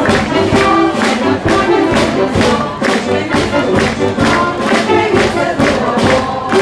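Marcha popular music played loud by a brass band, with a steady, quick beat and a chorus singing the tune.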